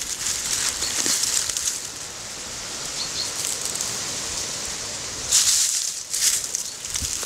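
Dry fallen beech leaves rustling and crackling as a hand works a mushroom loose from the leaf litter and pulls it free, with two louder rustles about five and six seconds in.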